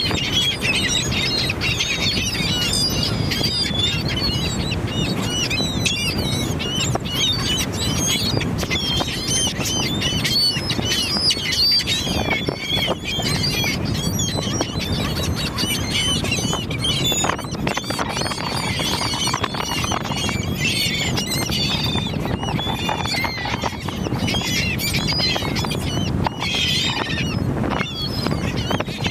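A flock of seabirds calling over one another, many short, high squawks and squeals overlapping without a break, over a steady low rush.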